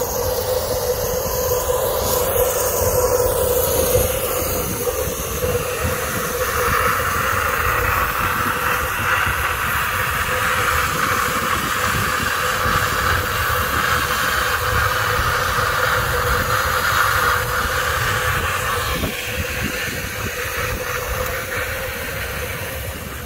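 Miniature steam locomotive standing in steam, hissing steadily with a constant tone under it. The hiss grows louder about six seconds in and drops back about nineteen seconds in.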